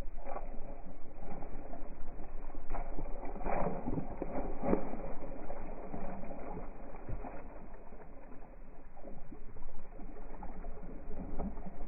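A hooked bluefish thrashing and jumping at the water's surface beside a kayak: a run of irregular splashes, thickest a few seconds in, sounding muffled.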